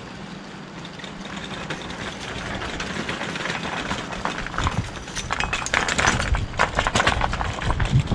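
Rustling and light clicking from hands at work, growing louder and busier in the second half, over a steady low hum.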